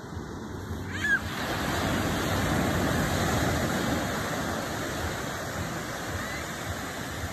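Small ocean waves breaking and washing up a sandy beach: a surf hiss that swells about a second in and slowly eases off. A brief high squeak sounds just as the surf rises.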